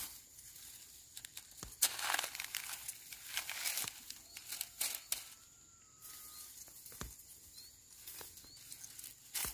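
Irregular rustling and crackling of dry plant stalks being handled, with scattered sharp snaps.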